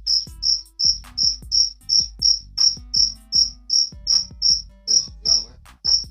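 Insect chirping, most likely a cricket: a steady, regular train of high-pitched chirps, about three a second, with a short gap near the end.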